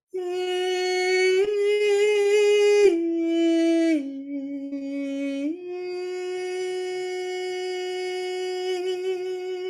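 A woman's solo voice toning long, slow, wordless notes. She starts on one note, steps up about a second in, then steps down twice, and returns near the middle to the first note, which she holds with a slight waver.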